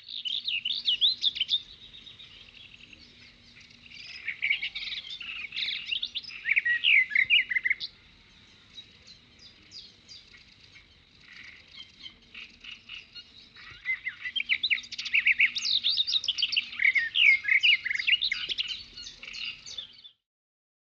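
Birds singing: busy, quick chirping phrases, loudest in bouts at the start, from about four to eight seconds in, and from about fourteen seconds on, then cutting off suddenly near the end.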